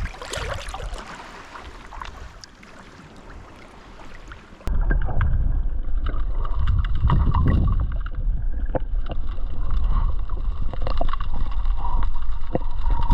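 Seawater sloshing and splashing as a long tom is let go at the water's edge. About five seconds in, the sound turns abruptly to a loud, muffled low rumble of moving water, with the high end gone.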